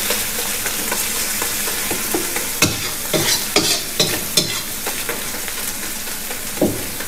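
Onion and spice masala sizzling in oil in a wok, fried on low heat, while a slotted metal spatula stirs and scrapes the pan with repeated short scrapes and clinks, most frequent around the middle.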